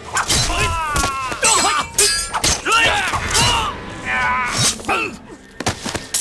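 Film fight sound effects: a run of punch and body-blow impacts mixed with men's grunts, shouts and cries of pain, ending in a sharp strike near the end.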